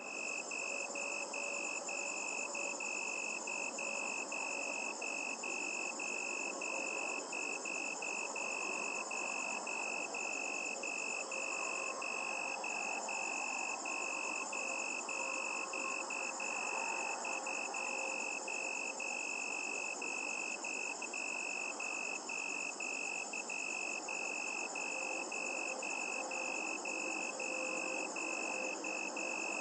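Crickets chirping at night: a high chirp repeating steadily about twice a second over a constant, even higher-pitched trill.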